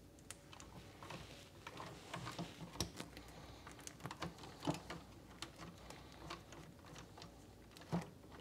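Light, irregular clicks and rustles of insulated electrical wires being handled and twisted together by hand at a fluorescent light ballast, with a sharper click about eight seconds in.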